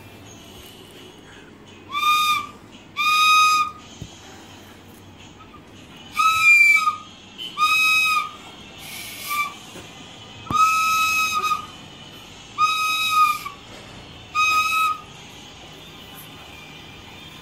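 A child blowing a toy flute in about eight short toots, each on one steady high note and lasting about half a second to a second, with pauses between them.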